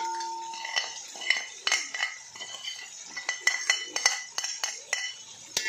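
Metal spoon scraping and clinking against a ceramic plate, tipping ginger-garlic paste and spices into a metal cooking pot: an irregular run of sharp clinks and scrapes, each with a short ring.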